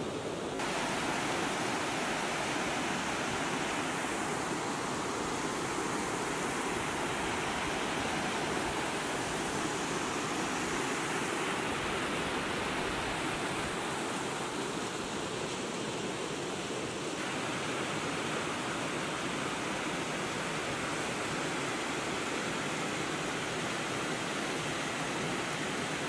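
Steady rush of a rocky mountain stream running over small cascades. The hiss thins a little about two-thirds of the way through.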